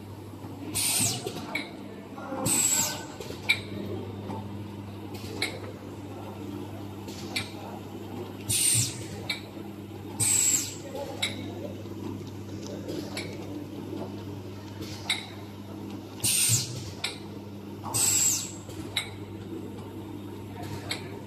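Four-side sealing machine for wet wipes running: a steady motor hum with frequent light mechanical clicks. Sharp hisses of compressed air vent from its pneumatic cylinders, in pairs about a second and a half apart, with each pair coming back roughly every eight seconds.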